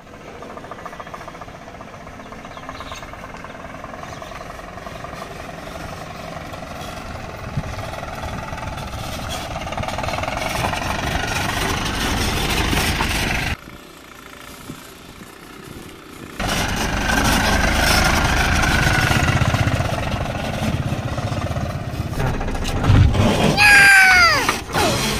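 A motor vehicle's engine running, mixed with rumbling outdoor noise; the sound drops away for a few seconds partway through. Near the end a brief pitched tone slides sharply downward.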